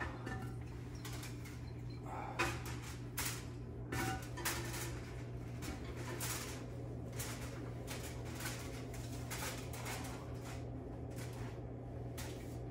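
Irregular clicks and knocks of metal tongs and cookware being handled, over a steady low hum.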